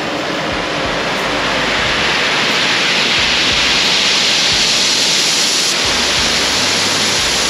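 Oxy-acetylene torch burning with a steady rushing hiss, growing louder over the first few seconds as its flame is opened up, lit to preheat the hardened differential gears for welding.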